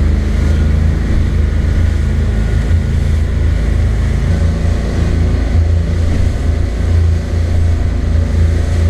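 A motorboat's engine running steadily while underway, heard inside the cabin as a loud, even low drone mixed with hull and water noise.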